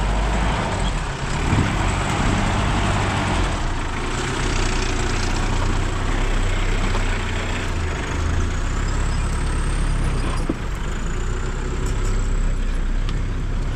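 Jeep Cherokee's engine running steadily under load while crawling over off-road ground. A rushing noise of tyres on dirt and stones is loudest in the first few seconds, then eases.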